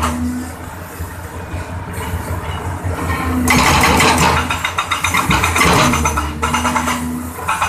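Excavator's hydraulic breaker hammering concrete in rapid blows: quieter in the first few seconds, then a long burst from about three and a half seconds in and another shorter one near the end. The excavator's diesel engine hums steadily underneath.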